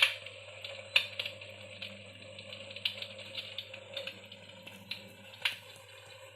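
Electric fireplace's wood-fire crackle sound effect playing from its built-in speaker: irregular sharp pops and clicks over a hiss, with a steady low hum underneath.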